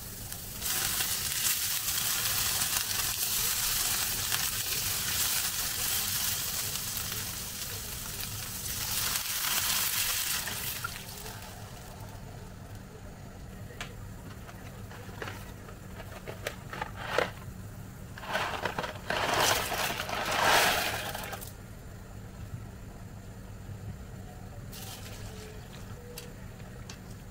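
A frying pan of fried diced potatoes hisses and sizzles loudly as water hits the hot pan, dying down after about ten seconds. Later come clicks, clatter and scraping as pizzoccheri go into the pan and are stirred with a silicone spatula, then only a quiet simmer.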